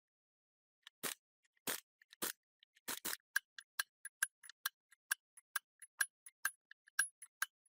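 A few sharp knocks on metal, then a steady run of lighter metallic clicks, about four to five a second, each with a short ring.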